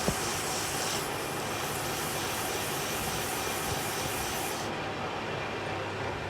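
Steady mechanical running noise with a hiss, and a sharp click right at the start; the high hiss drops away about two-thirds of the way through.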